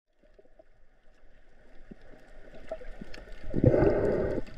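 Water sloshing and gurgling around an underwater camera, with faint scattered clicks that grow louder, then a louder rushing surge of water about three and a half seconds in that lasts under a second.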